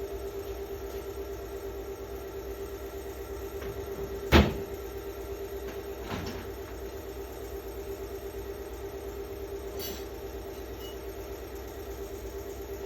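A steady mechanical hum, with one loud sharp knock about four seconds in and a softer knock a couple of seconds later.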